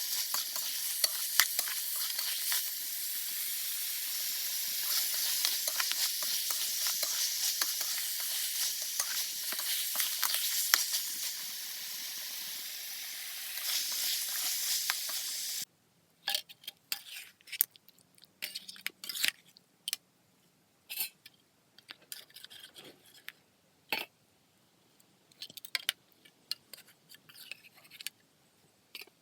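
Pork curry sizzling as it fries in a pan, with clicks and scrapes from stirring. About halfway through the sizzle cuts off suddenly and only scattered light clicks and taps follow.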